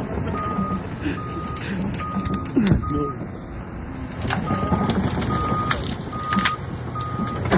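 Excavator's travel alarm beeping a little over once a second over its running diesel engine, pausing for about a second midway, with sharp cracks of branches snapping.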